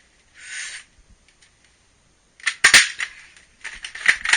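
A Buzz Bee Air Warriors Rangemaster pump-up bolt-action toy dart rifle firing. It gives a sharp crack about two and a half seconds in, after a short hiss-like burst near the start. A quick run of clicks and rattles follows.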